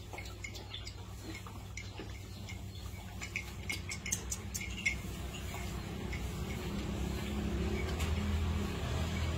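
Scattered light clicks and scrapes of a baby monkey moving about inside a metal pot, over a steady low hum that grows a little louder near the end.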